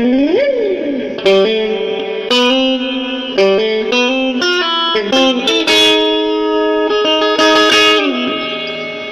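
Electric guitar played solo, a run of single picked notes and short phrases. In the first second one note swoops up in pitch and back down.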